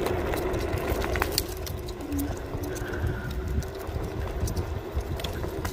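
Varla Eagle One electric scooter riding over a rough path: wind and tire rumble on the microphone with a faint steady hum from the motor, and scattered light clicks and rattles from the scooter over bumps.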